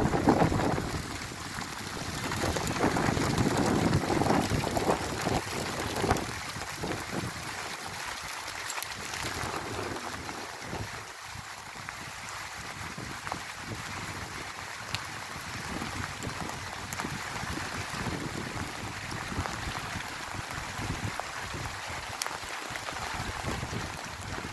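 Hail falling steadily: a dense patter of small hailstones hitting car roofs, pavement and hedges. For the first few seconds, wind buffets the microphone, then the patter goes on evenly.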